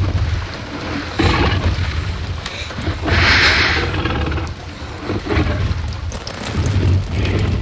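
Tyrannosaurus rex roar sound effect: a series of deep, rumbling growls and roars, one every second or two. The one about three seconds in carries a loud, breathy hiss.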